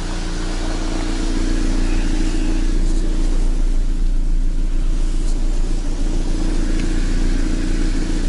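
GAZelle Next van's petrol engine, fitted with a propane system, idling steadily.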